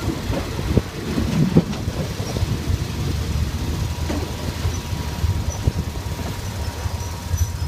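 State Railway of Thailand ordinary passenger train running, heard from inside the carriage: a steady low rumble with scattered knocks and clicks from the running gear, most frequent in the first two seconds.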